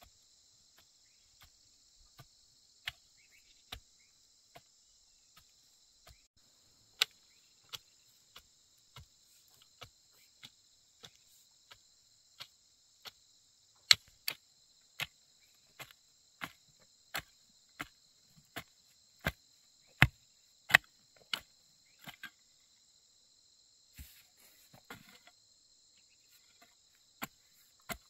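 Insects chirring steadily and high-pitched, with a long run of sharp knocks at uneven spacing, roughly one every half second to a second, some much louder than others.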